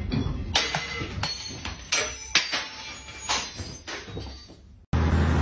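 Irregular knocks and clatters, about six of them, from a cat scrambling up a tall pole cat stand.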